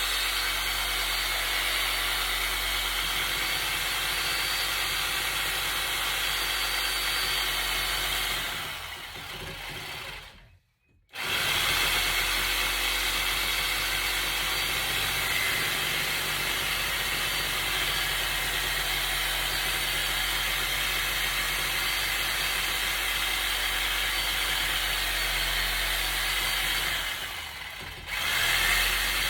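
A power tool running steadily with a continuous noisy whine. It winds down about a third of the way in, stops briefly, starts again, and dips once more near the end.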